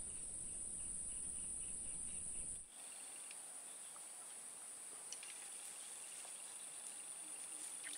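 Steady high-pitched drone of insects, with a fainter chirp repeating several times a second during the first couple of seconds. A low rumble underneath stops abruptly a little under three seconds in.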